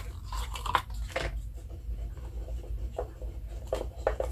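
Paper and small packaging being handled: soft rustling and scraping in the first second or so, then a few light clicks and taps near the end.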